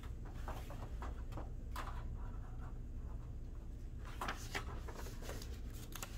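Scattered light clicks and clacks in two clusters, one in the first couple of seconds and another about four seconds in, over a steady low room hum: plastic VEX IQ risers being picked up and set down on the field.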